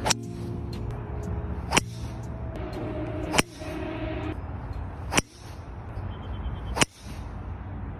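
Fairway woods and a driver striking golf balls off the tee in rapid succession: five sharp cracks of club face on ball, about one every 1.7 seconds.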